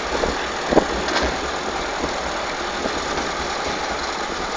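International Harvester 434 tractor engine running steadily as it tows a trailer loaded with hay bales along a road, heard from the trailer behind it. A couple of short knocks come within the first second and a half.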